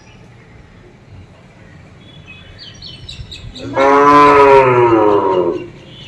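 A cow mooing once, a long loud call of about two seconds with a slightly falling pitch. Faint bird chirps come just before it.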